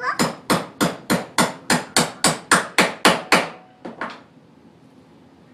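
Hammer striking repeatedly at an even pace of about three blows a second for some three seconds, then two lighter blows.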